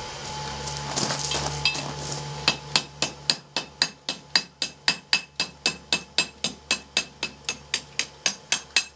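Hand hammer striking red-hot 3/8 rebar on the horn of an anvil, a steady run of ringing blows, a bit over three a second, starting about two and a half seconds in, bending the bar's end into a pigtail curl. Before the hammering there is a steady hum and a few light metallic clinks.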